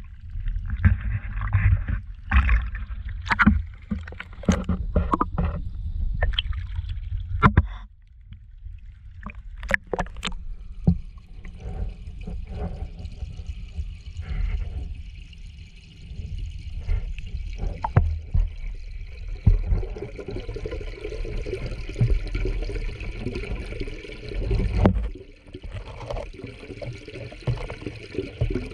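Water and handling sounds as an action camera is lowered into a garden pond: knocks and water sloshing for about the first eight seconds. Then a muffled underwater rumble with occasional knocks as the camera sits below the surface.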